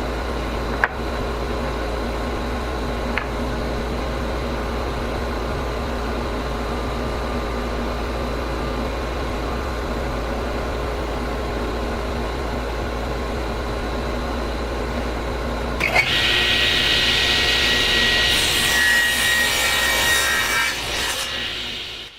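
A woodworking power tool running steadily, then cutting into wood after about sixteen seconds, which makes it louder and hissier, before it stops abruptly near the end.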